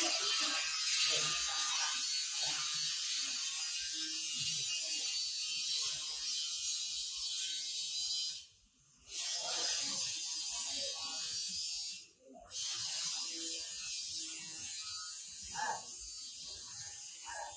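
Steady scratchy scrubbing of bare concrete stair treads being cleaned with water by hand. It cuts out briefly twice, about halfway through and again a few seconds later.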